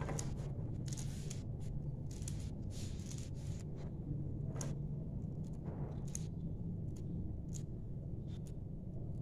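Small kitchen knife cutting through fresh coriander held in the hand: a run of short, crisp snips at an irregular pace, roughly one or two a second. A steady low hum sits underneath.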